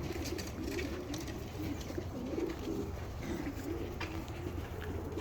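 Racing homing pigeons cooing: short low coos repeating one after another, over a steady low hum.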